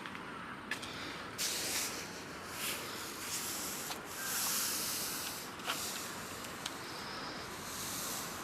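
Wood fire crackling with sharp pops and a few swells of hissing, over a steady hiss of rain.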